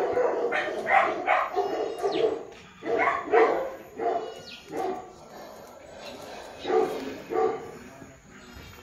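A dog barking repeatedly in short, separate barks at uneven intervals.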